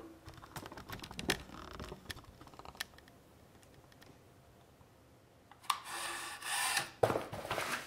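An aluminium-and-plastic notebook cooler being handled on a surface: scattered light clicks and knocks, then a quiet stretch, then rubbing and sliding near the end with a knock.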